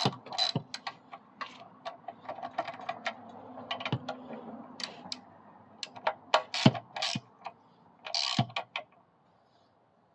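Ratchet wrench clicking and small metal tool clinks as the intake manifold nuts are snugged down, in irregular clicks with a few louder scrapes, stopping near the end.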